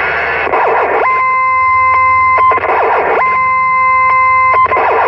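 Electronic tone effect keyed over CB channel 19 and heard through the radio's speaker: a steady, distorted tone held about a second and a half with clicks through it, repeating about every two seconds, each time broken by a noisy sweeping swish.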